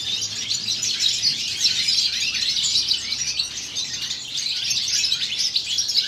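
Young male European goldfinch singing a fast, unbroken twittering song.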